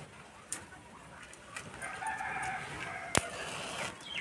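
A rooster crows for about two seconds in the background, and a little after three seconds a matchstick is struck against the side of a matchbox with one sharp scrape and catches light.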